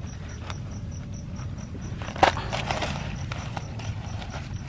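Hands pulling apart a split durian's spiky husk: one sharp crack a little over two seconds in, then a few lighter crackles of the fibrous rind. An insect chirps steadily in the background, about four pulses a second.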